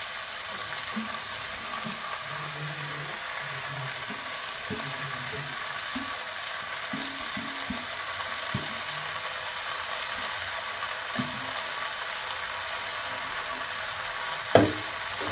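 Steady sizzle of chopped vegetables frying in oil in a kadhai as poha (flattened rice) is added over them. Near the end a wooden spatula knocks sharply once against the pan as stirring begins.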